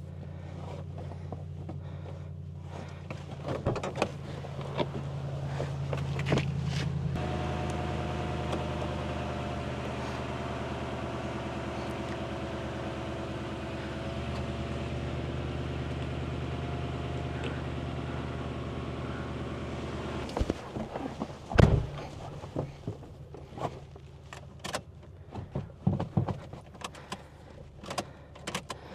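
Toyota Tundra engine idling steadily while it supplies a jump start to a dead battery. About seven seconds in it grows louder and fuller, and about twenty seconds in it drops away, leaving scattered clicks and knocks with one loud knock.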